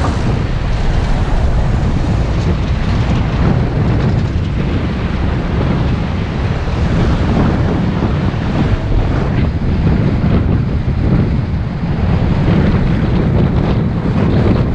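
Wind buffeting the microphone on a moving bus, over the low rumble of the bus and the road. It is loud and steady throughout.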